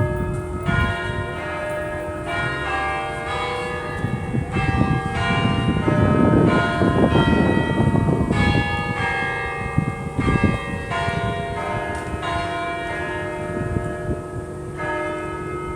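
Church tower bells pealing: several bells of different pitches struck in quick succession, each note ringing on under the next. A low rumbling noise swells under the bells in the middle.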